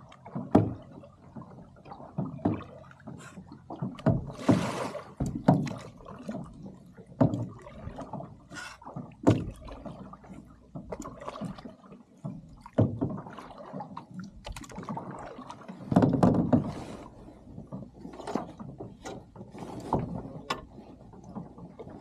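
Lake water splashing and slapping against the side of a boat's hull: irregular knocks and splashes, with longer washes about four seconds in and again about sixteen seconds in.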